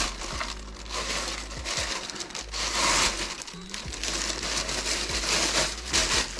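Packaging around an RC helicopter canopy crinkling and rustling as it is handled and unwrapped, in an irregular run of crackles.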